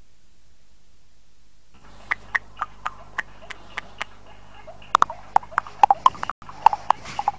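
Scattered sharp clacks at irregular intervals, a few a second, starting about two seconds in and growing more frequent toward the end.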